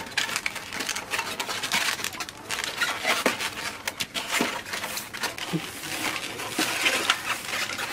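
Styrofoam takeaway boxes being handled and stacked into a plastic crate: a steady flurry of light scrapes, rubbing and small knocks.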